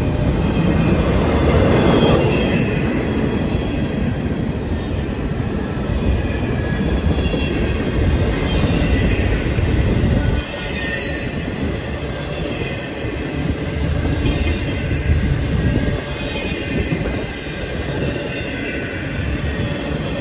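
CN intermodal freight train rolling slowly past: a steady rumble of wheels on rail, with high-pitched wheel squeal coming and going over it.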